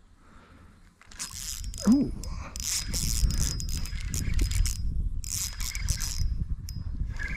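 Spinning reel being wound in several bursts of cranking, its gears whirring, over a heavy rumble of the rod being handled close to the microphone. A short low sliding tone comes about two seconds in.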